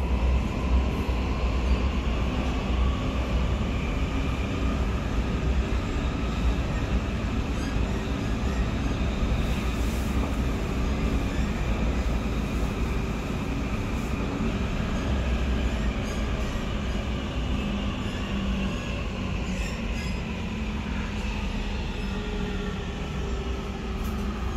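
Munich U-Bahn Siemens C2 train running through the tunnel, heard from inside the passenger car: a steady deep rumble from the wheels and track, with the thin whine of the electric traction motors over it. The sound eases slightly over the last few seconds.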